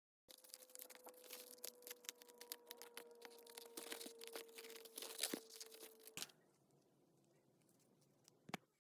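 Paper crackling and tearing in quick irregular crackles, which stop suddenly about six seconds in. A single sharp click follows near the end.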